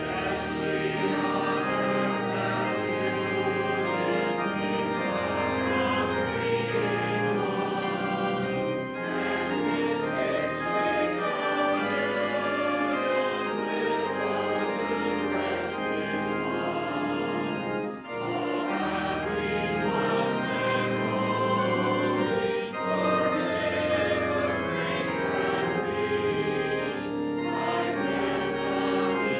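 Church organ accompanying voices singing a hymn, with a brief break about eighteen seconds in.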